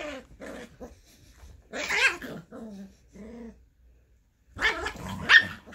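Scottish terrier mother and her six-week-old puppy play-fighting, with short bouts of growling and barking. The loudest burst is about two seconds in, and there is a louder cluster near the end that has a high rising yip.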